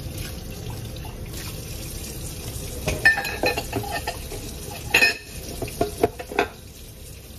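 Kitchen tap running into the sink while stainless steel pots clink and knock against each other, with a cluster of sharp metallic clanks in the second half.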